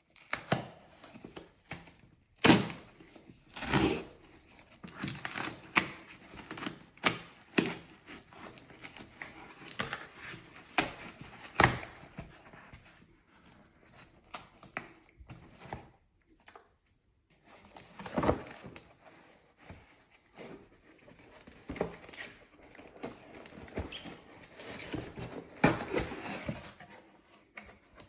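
Hands opening luxury packaging: paper and card crinkling and rustling, broken by irregular sharp taps and clicks as the box and wrapping are handled.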